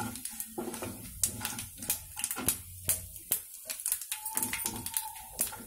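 Mustard seeds, split dals and dried red chillies frying in hot oil in a kadai for a tempering, crackling and popping in sharp, irregular clicks over a low sizzle, while a spatula stirs them.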